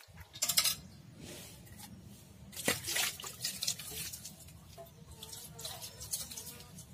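Hands splashing and swishing water while rinsing small melinjo mushrooms in a shallow metal tray, with irregular splashes. The sharpest splash comes about half a second in, and a cluster follows around three seconds in.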